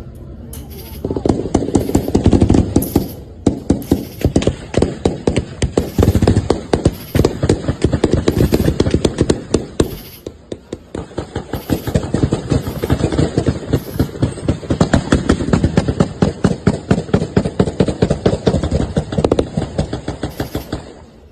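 Rapid, sustained gunfire: many shots in quick succession, several a second, with a brief lull about ten seconds in.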